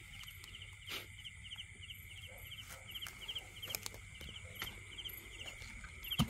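Night chorus in a flooded field: a creature chirping in short rattling pulses about three times a second over a steady high-pitched drone, with a few sharp clicks and a louder thump at the very end.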